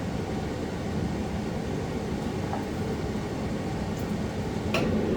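Steady low hum of workshop background noise, like a fan running. A faint click comes about four seconds in, and a brief scrape begins near the end.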